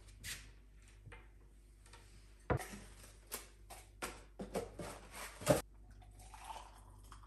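Kitchen handling sounds: a cupboard door clicks, then a run of sharp knocks and rustles as a cardboard box is handled on the worktop, loudest about two and a half and five and a half seconds in. Near the end, liquid is poured from a metal jug into a ceramic mug.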